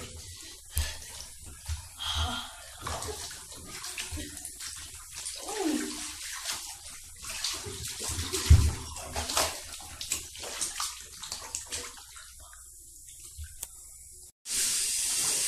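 Cola-and-water bath sloshing and splashing irregularly as a person lies down and shifts in the tub, with one heavier thump against the tub past the middle. Near the end it cuts to a steady hiss.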